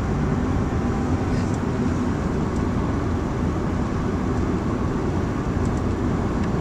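Steady road noise of a moving car heard from inside the cabin: an even, low rumble of tyres and engine at cruising speed.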